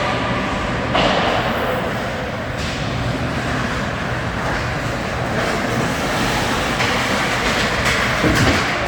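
Steady, loud din of an ice hockey game in an arena, with play on the ice and spectators mixed into one continuous noise.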